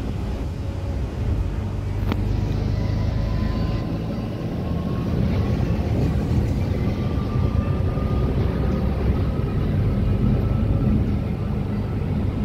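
Interior sound of a Volvo B8RLE articulated city bus under way: steady low engine rumble from its rear-mounted six-cylinder diesel with road noise. A faint whine slowly rises in pitch as the bus gathers speed, and there is a single click about two seconds in.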